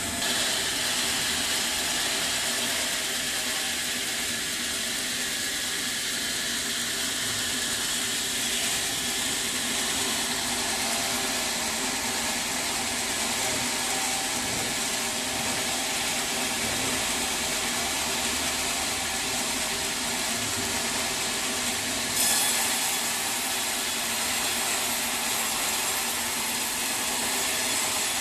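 Sawmill machinery running steadily, with a sharp rise in high-pitched hiss about two-thirds of the way through.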